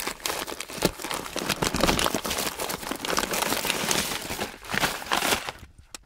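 Clear plastic bags of small electronic parts crinkling and rustling as hands rummage through them, with scattered small clicks. It stops shortly before the end.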